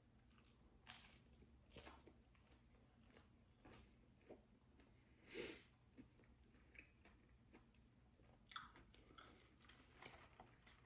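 A person chewing and biting McDonald's chicken nuggets and fries, faint, with a few short, sharper bites spread through, the loudest about five and a half seconds in.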